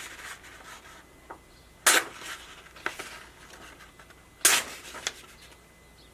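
A freshly sharpened Benchmade Bushcrafter knife making test cuts: two short, sharp slicing swishes about two and a half seconds apart, with a few small clicks and handling sounds between them.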